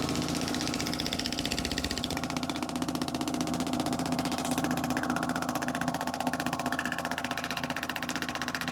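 Shockwave therapy device firing rapid, even pulses against the neck, with a steady hum beneath.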